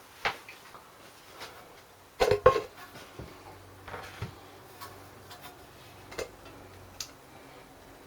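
Scattered knocks and clinks of tools and metal parts being handled while the oil is drained from a small Briggs & Stratton engine. The loudest is a quick cluster of knocks about two seconds in, with lighter single clicks after it.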